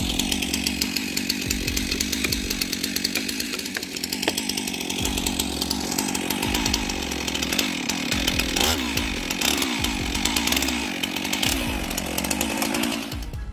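Chainsaw running steadily while cutting wood, with a brief waver in engine pitch about two-thirds of the way through, then cutting off abruptly at the end.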